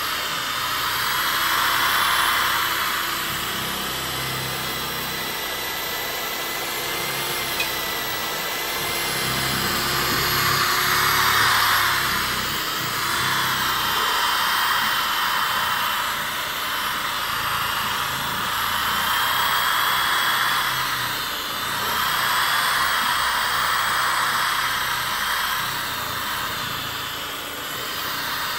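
Cheap electric polisher with a sponge buffing pad running steadily while polishing a yellowed acrylic sheet: a constant motor whine with a hiss that swells and eases every few seconds.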